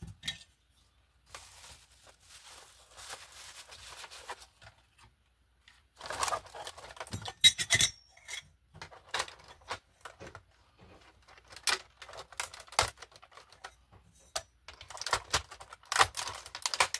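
Parts of a floor-stand tablet holder being packed into a cardboard box: soft rustling of plastic wrap and bubble wrap, then scattered clicks and clunks of the metal spring arm and poles against each other and the box, with a ringing metallic clink about seven and a half seconds in and a busier cluster near the end.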